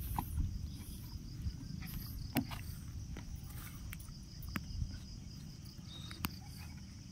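Insects chirping in a steady, high, pulsing trill, with a few sharp knocks from footsteps on the wooden steps and platform boards.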